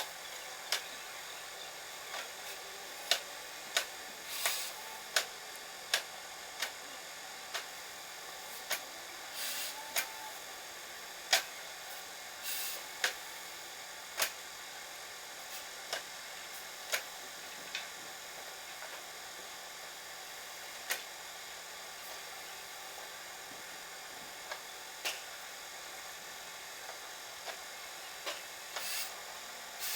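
Irregular sharp clicks and ticks, one every second or two with a few short rustling bursts among them, over a steady faint hiss.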